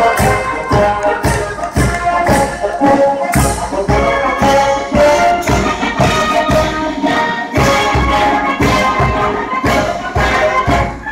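Massed military bands playing together: brass over a steady drum beat of about two strokes a second.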